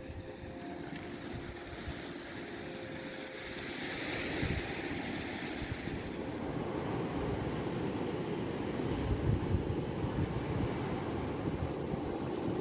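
Black Sea waves washing onto the shore, with wind buffeting the microphone. A wave breaks about four seconds in, and the surf is louder from then on.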